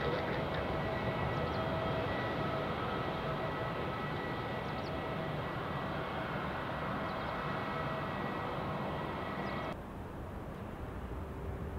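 Airbus A330-300 jet engines running at low thrust as the airliner taxis and turns, a steady engine whine of several held tones over a rumble. About ten seconds in it cuts off abruptly to a quieter, low rumble of a distant airliner on approach.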